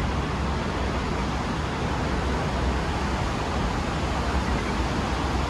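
Red Line electric commuter train approaching an elevated station platform: a steady low rumble with a rushing hiss over it.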